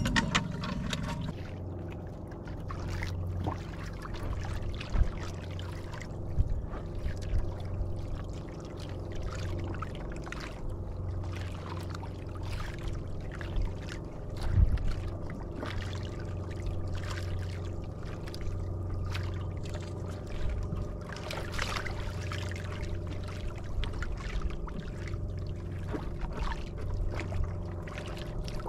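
Water sloshing and lapping around a small wooden outrigger fishing boat at sea, with irregular small splashes and a steady low hum underneath.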